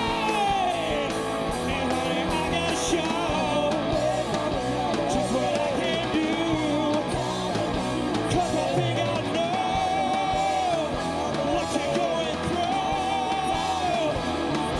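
A live rock band playing: drums, electric guitar and bass under a sung lead vocal.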